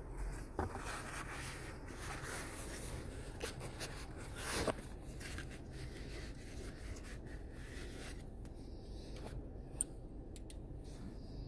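Hands rubbing and scraping on the shifter's plastic trim and boot, with scattered small clicks, one longer scrape about four and a half seconds in, and a single sharp click near the end.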